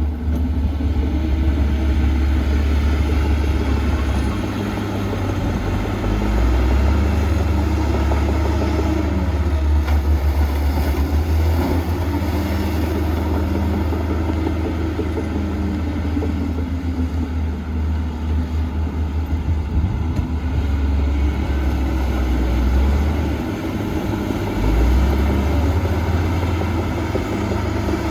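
Heavy diesel earthmoving machinery running, a deep engine rumble whose pitch rises and falls several times as the engine speed changes.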